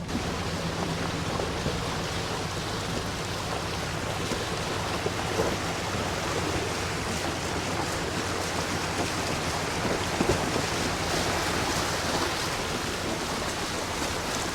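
Tires rolling over a rough gravel road, heard from inside a pickup truck carrying a loaded camper: a steady rushing noise with a few light knocks.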